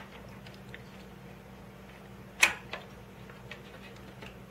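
A sharp click about halfway through, a softer click just after and a few faint ticks over a low steady hum: small rotary tool accessories and their plastic containers being handled.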